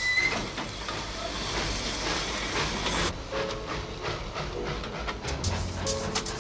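Steam locomotive letting off steam: a steady hiss with a brief high whistle-like tone at the very start, cutting off suddenly about three seconds in, after which music begins.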